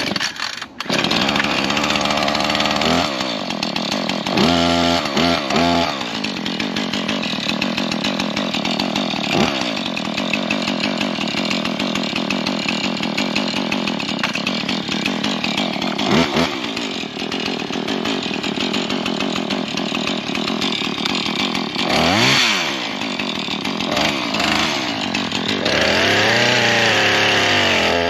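Husqvarna 440 two-stroke chainsaw catching in the first second and revved in a few quick blips about four to six seconds in. It then runs at full throttle as it cuts into an old stump, its pitch dipping and recovering a few times under load.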